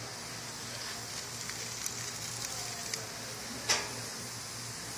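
Steady background hiss with a faint low hum, a few tiny clicks, and one short sharp noise about three and a half seconds in.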